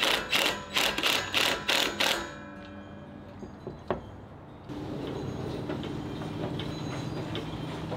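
Cordless driver with a socket running a bolt into the roof rack's steel gutter mount, a rapid loud rattling for about two seconds. After a quieter stretch with one sharp click, a steady low hum runs through the second half.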